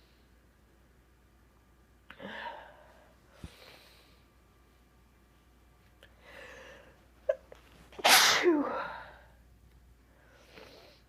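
A person sneezing: several sharp breaths build up, then one loud sneeze about eight seconds in that ends falling in pitch, followed by a softer breath.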